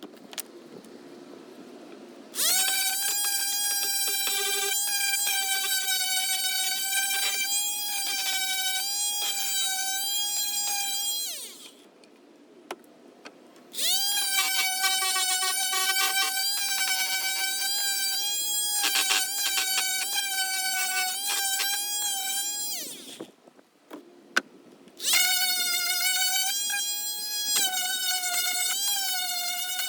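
Electric power sander running in three bouts of several seconds: a steady high-pitched whine that spins up at each start and winds down at each stop, with small clicks as it works on the painted wood of a table being sanded back.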